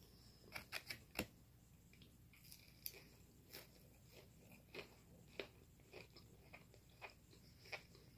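Quiet mouth sounds of a person chewing food: small wet clicks and crunches, the loudest cluster about a second in, then scattered ticks through the rest.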